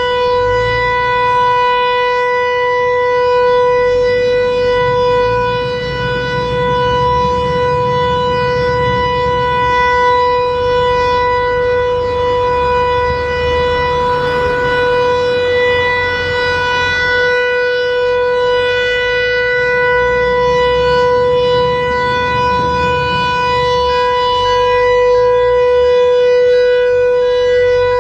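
American Signal Corporation Tempest T-121 omnidirectional mechanical siren sounding its steady full-alert warning tone during a test. The pitch holds level without rising or falling.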